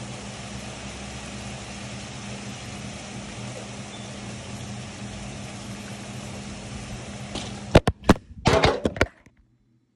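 Steady hiss of heavy rain with a low hum underneath. About eight seconds in, several loud knocks and rubs as the phone is handled, then the sound drops away.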